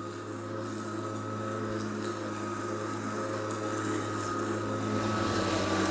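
Atlas 80V brushless cordless self-propelled lawn mower running and cutting grass: a steady electric motor and blade hum with a high whine, slowly growing louder.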